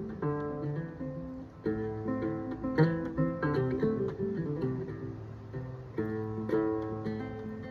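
Plucked string instrument playing a tune: picked notes ringing over one another, with several louder struck chords.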